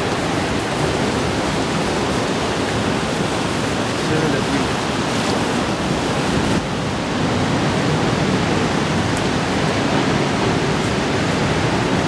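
Steady, loud rushing of wind and ocean surf, with a low rumble of wind buffeting the microphone.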